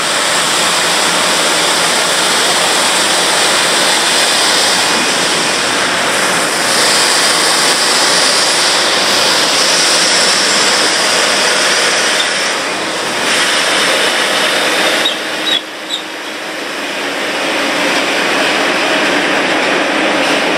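Road surface-dressing machinery at work: a self-propelled chip spreader and the tipper lorry tipping stone chippings into its hopper, engines running with a steady loud noise of machinery and gravel. The noise dips briefly about fifteen seconds in.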